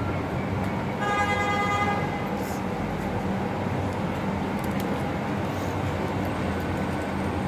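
A vehicle horn sounds once, held for about a second, starting about a second in, over a steady low rumble of traffic.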